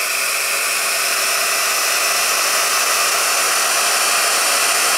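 GHD Duet Style hot-air straightener running on setting 1, its fan blowing a steady rush of air while it is drawn slowly down a section of wet hair, drying and smoothing it at once.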